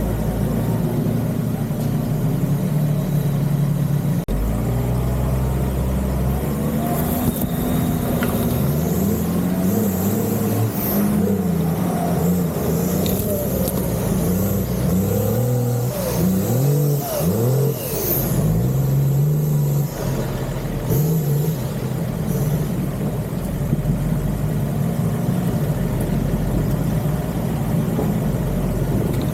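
Off-road 4x4's engine running at a steady low speed, then revved up and down over and over through the middle stretch, with a few quick sharp blips, before settling back to a steady idle.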